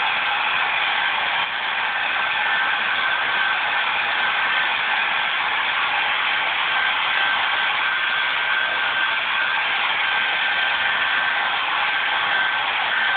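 Handheld hair dryer running steadily as it dries a wet rabbit's fur: an even rush of blown air with a thin, steady high tone above it.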